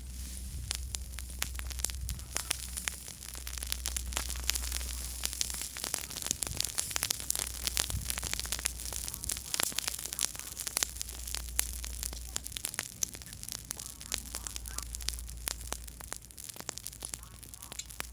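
Small wood campfire crackling, with a dense run of irregular sharp pops and cracks over a low steady rumble.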